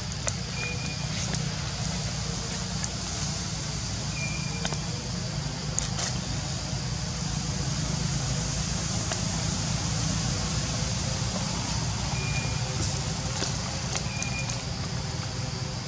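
Steady outdoor background noise, a low rumble under a hiss, with four short faint high chirps and one sharp click about six seconds in.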